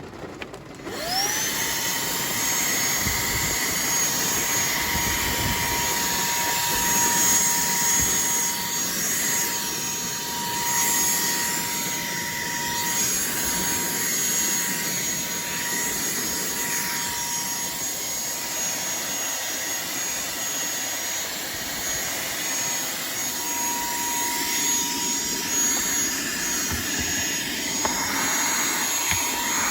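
Cordless handheld vacuum switched on about a second in, its motor spinning up to a steady high whine over the rush of air, then running continuously as it is used.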